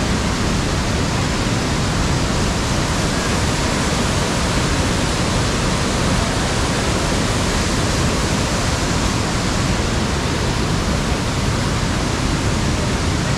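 Rushing water of a rocky mountain stream, an even, steady noise with no change in level.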